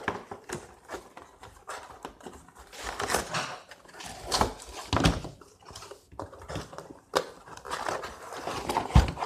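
Nerf blaster's plastic and cardboard packaging being handled and pulled open by hand: scattered clicks, knocks and crinkling rustles, with a low thump near the end.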